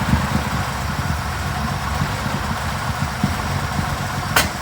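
The six-cylinder petrol engine of a 1932 Leyland TD1 bus idling low and uneven, short of fuel after standing in the cold. A sharp click near the end.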